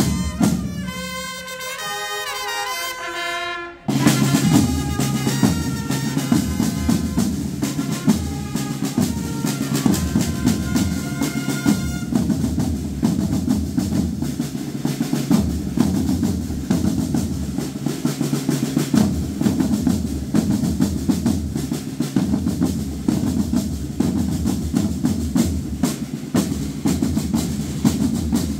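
Procession band music: brass playing for the first few seconds, then after a sudden change about four seconds in, snare and bass drums beat a steady marching cadence with rolls, a few held brass notes lingering under the drums until about twelve seconds in.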